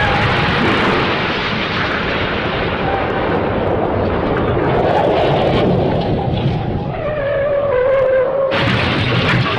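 Sound effect of a heavy smash: a loud, continuous crashing rumble, with a wavering tone sliding down about seven seconds in.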